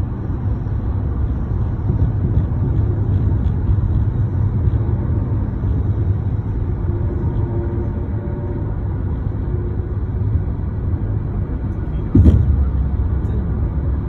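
Steady low road and engine rumble of a moving car heard from inside the cabin. Near the end a sudden low thump, after which the rumble is a little louder.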